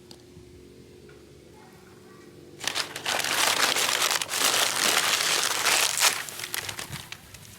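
Loud, close crinkling and crackling of dry material being crumpled or handled, starting about two and a half seconds in and lasting about four seconds.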